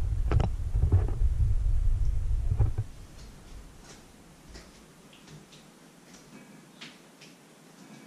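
Low rumbling and a few knocks from the camera being handled and settled on the counter, stopping suddenly about three seconds in. After that, a quiet kitchen with faint scattered clicks and ticks.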